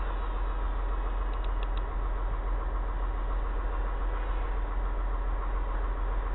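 Small RC model plane's motor and propeller running at a steady drone in flight, over a low rumble.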